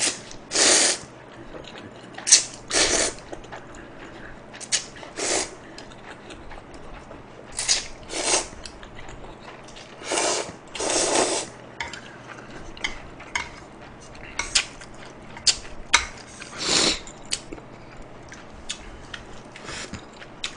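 A man slurping spicy instant noodles with chopsticks: about eight loud slurps, each under a second, at uneven intervals, with short clicks of chewing between them.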